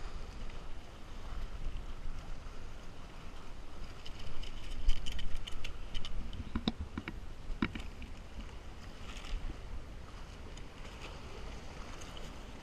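Handling of a freshly caught red snapper, a metal hook or rod and a plastic carrier bag on rocks: crinkling and clicking, with two sharp knocks about six and a half and seven and a half seconds in, over a steady low rumble.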